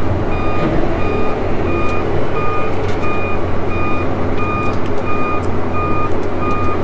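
Electronic warning beeper sounding evenly, about three beeps every two seconds, over a tractor's engine running steadily.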